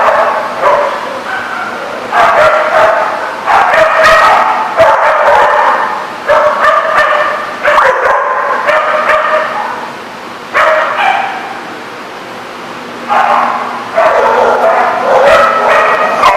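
Dogs barking and yipping, several at once, in repeated loud bursts, with a quieter lull about ten seconds in before the barking picks up again.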